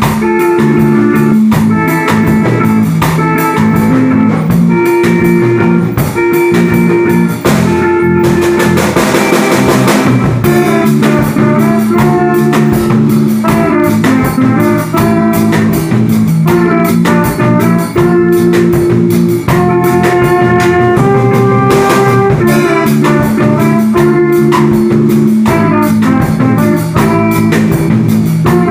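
Small live band playing a tune: drum kit keeping a steady beat under amplified guitars, with a trumpet playing the melody. The cymbals wash loudly about eight seconds in.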